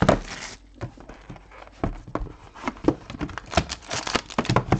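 Plastic shrink-wrap crinkling as it is pulled off a trading card box, then scattered taps and rustles as the cardboard box is opened and its packs handled.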